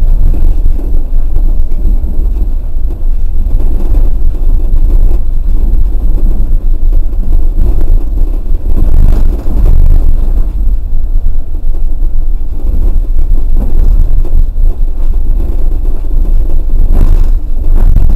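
Osaka New Tram 100A-series rubber-tyred people-mover running along its concrete guideway, a loud steady rumble heard from the front of the car, the recording breaking up into distortion. A short knock near the end.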